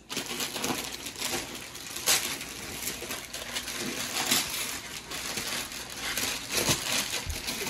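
Gift wrapping paper being ripped and crumpled by hand: a steady crackling rustle broken by sharp tearing rips every second or so.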